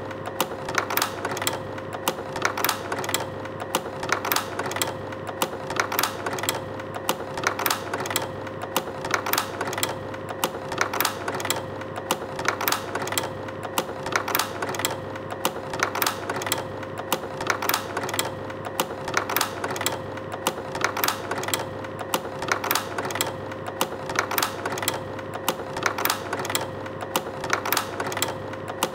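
Slide projector running: a steady hum with a constant tone, under a continuous rapid clicking and clattering of its slide-changing mechanism.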